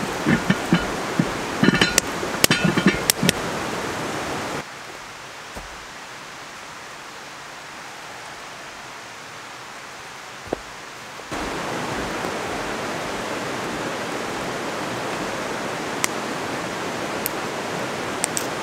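Steady rush of a shallow river running over rocks, with a few metal clinks and knocks in the first few seconds as a cast-iron Dutch oven is set down at the fire. The water sound drops away abruptly about four and a half seconds in, with one knock near the end of the quiet stretch, and comes back about eleven seconds in.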